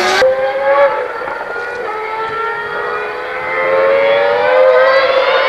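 Formula One car's V10 engine at high revs on the circuit. Its note dips briefly about two seconds in, then climbs steadily in pitch as the car accelerates.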